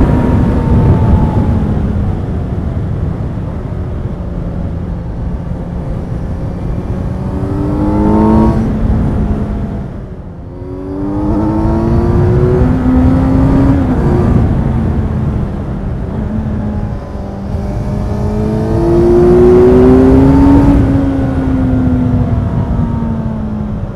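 Kawasaki Z900's inline-four engine on the move, its pitch climbing as the throttle is opened and sinking back on the overrun several times, with a brief drop about ten seconds in. Wind rush underneath.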